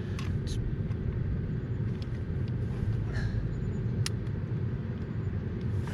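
Steady low vehicle rumble, with a few faint clicks and one sharper click about four seconds in.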